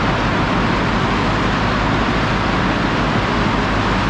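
Loud, steady machinery noise from a cement plant's bag-loading conveyor area: an even rushing noise with a low hum beneath, without distinct knocks or changes.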